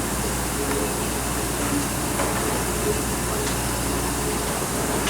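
Steady low drone and hiss of a fishing boat's engine running under wind noise, with faint voices mixed in.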